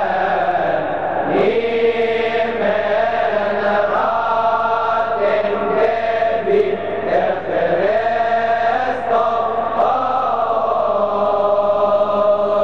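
Male Coptic deacons' choir chanting a hymn in unison, holding long notes that step up and down in pitch from one to the next.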